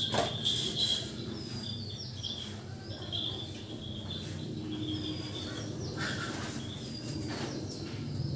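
Small birds chirping in short bursts over a steady high insect trill that fades after the first second, with a few brief hisses of milk squirting from the cow's teats as it is hand-milked into a cup.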